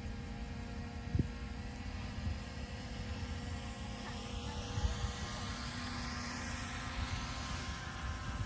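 Heavy earthmoving machine's diesel engine running steadily, with a rising whine in the second half.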